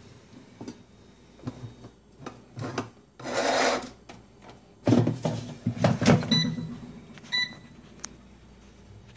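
Handling noises: a brief scraping rub, then several loud knocks, followed by two short electronic beeps about a second apart from the GoWise air fryer's touch control panel.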